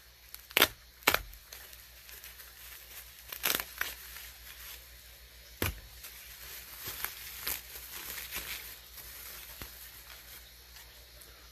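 Bubble wrap being handled and unwrapped from an HO scale model train tender: scattered crinkling and rustling, with a few sharper crackles in the first half.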